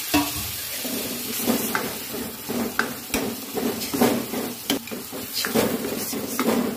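Steel spoon stirring and scraping a thick mash of roasted eggplant, tomato masala and peas in a kadhai, clinking against the pan about once or twice a second, over the steady sizzle of the frying masala. A sharp clink comes right at the start.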